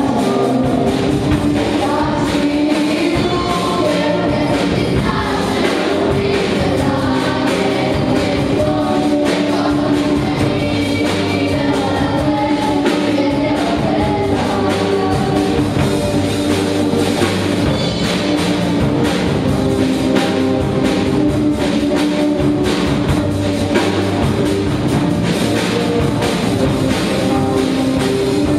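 Live performance of a song by a children's choir with a girl singing lead into a microphone, backed by electric guitars and a drum kit.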